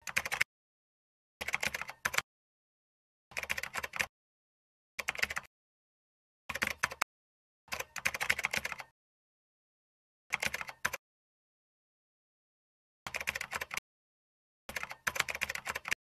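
Computer keyboard typing sound effect: about nine short bursts of rapid key clicks, separated by complete silence.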